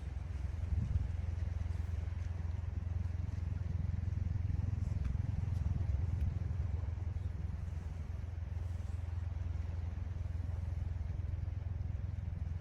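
Seashore ambience: a steady low rumble of wind on the microphone over the faint hiss of sea waves.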